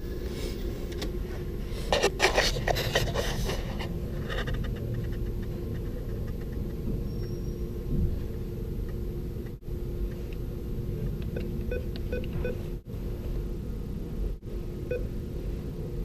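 Handling noises on a bank ATM: rustling and scraping in the first few seconds, then a few short keypad beeps near the end, over a steady low hum.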